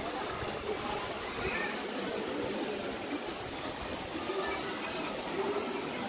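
Steady rush of water from a waterfall running after the first rains of the season.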